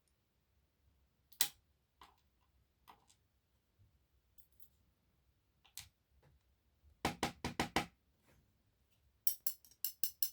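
Small metal clicks and taps of lock pins and tweezers as the pin stacks are taken out of an ASSA Twin lock cylinder: a few single ticks, then two quick runs of rattling clicks, one about seven seconds in and one near the end.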